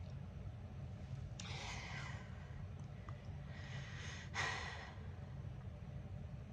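A girl breathing close to the microphone: two audible breaths or sighs, one about a second and a half in and another around four seconds in, over a steady low background hum.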